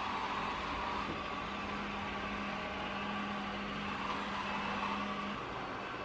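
Robot vacuum cleaner running: a steady whirring hiss with a low hum underneath that stops about five seconds in.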